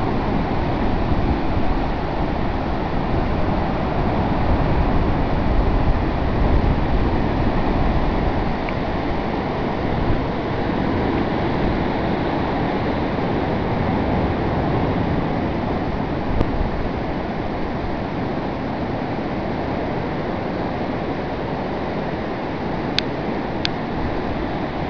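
Rough sea surf breaking on a beach in a steady wash of noise, with wind buffeting the microphone, heavier in the first half. A couple of small clicks near the end.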